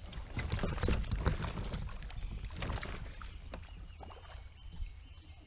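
Irregular knocks and clatter of gear against a kayak on the river, with water noise and a low rumble, busiest in the first second or two.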